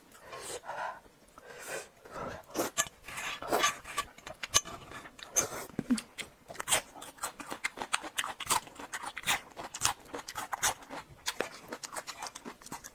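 Close-miked eating sounds of a person eating spicy food: irregular wet chewing, lip smacks and mouth clicks.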